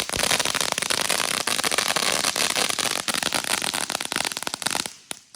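Fireworks crackling densely and rapidly, with many sharp pops over a continuous crackle. It stops abruptly near the end, followed by one last pop.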